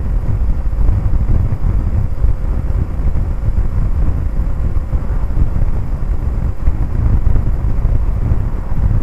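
Honda C90 Cub motorcycle riding along, its small single-cylinder four-stroke engine running under heavy wind buffeting on the microphone. A loud, steady low rumble.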